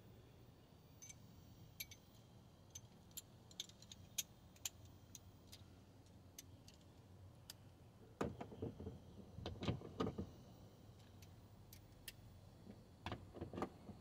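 Small metal hand tools, a socket and wrench, being handled: scattered light clicks and clinks, then two brief clusters of louder clinking and knocking about eight and thirteen seconds in.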